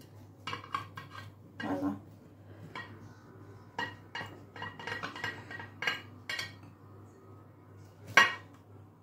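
Serrated knife sawing a slice from a loaf cake, with a series of light clinks and scrapes of knife against plate and board, and one sharper knock near the end.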